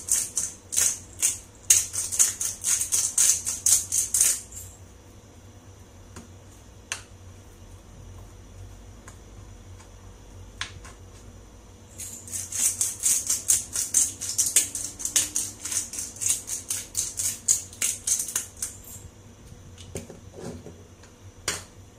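Hand-twisted pepper mill grinding black peppercorns: a fast, dry rattling crunch in two spells, one over the first four seconds and another from about twelve to nineteen seconds in.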